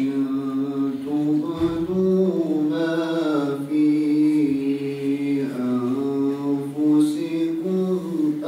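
A young man's voice reciting the Qur'an in melodic chant (tilawa), holding long notes that slowly rise and fall.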